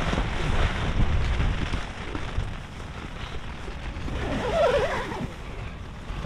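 Gusting storm wind buffeting the microphone over a steady hiss of wind and rain. The buffeting is heaviest in the first couple of seconds, then eases.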